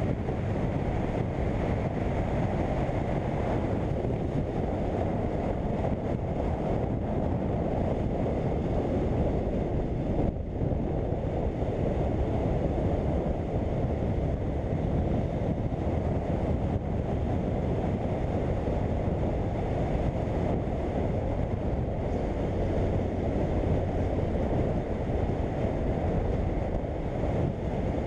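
Steady wind rush on the microphone from a BMW F800GS motorcycle riding at speed, with the bike's engine running underneath. The noise dips briefly about ten seconds in.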